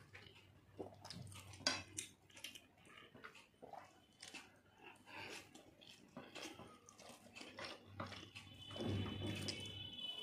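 Close-up sounds of eating rice and meat curry by hand: irregular chewing, lip smacks and wet clicks of the mouth, with fingers squishing rice on the plate.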